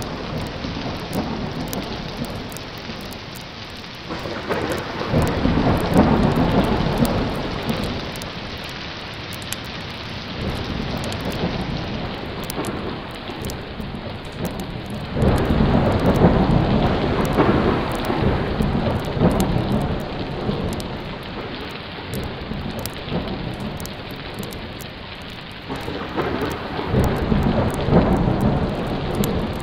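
Recorded thunderstorm: steady heavy rain with rolling thunder that swells and fades three times, each rumble lasting a few seconds.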